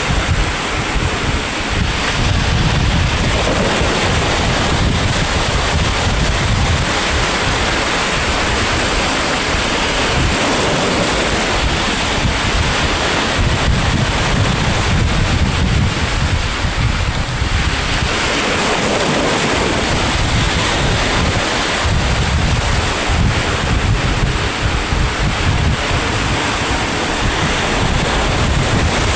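Sea waves washing and breaking on the shore in a steady surging rush, with wind buffeting the microphone.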